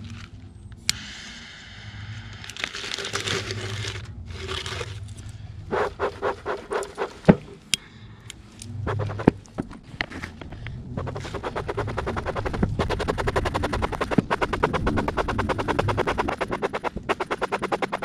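Metal hive tool prying and scraping at a wooden beehive: sharp cracks as the propolis-sealed crown board is levered free, and short scraping strokes. From about eleven seconds in, a fast, even clicking rhythm takes over and becomes the loudest sound.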